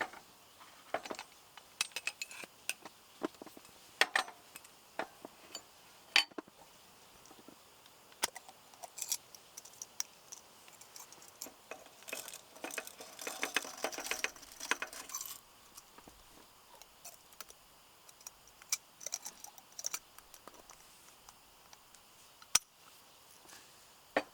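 Small objects being handled: scattered clicks, clinks and knocks, with a few seconds of denser rustling clatter about halfway through.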